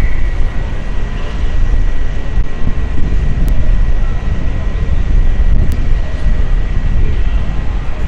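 City street ambience: a steady low rumble of traffic and urban noise, with a thin steady high tone underneath and two faint brief ticks in the middle.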